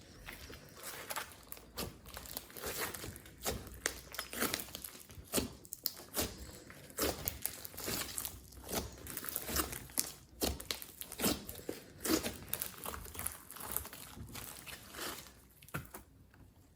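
Hands kneading and stretching glossy slime with clay mixed in: irregular sticky crackles and squishes that die down near the end.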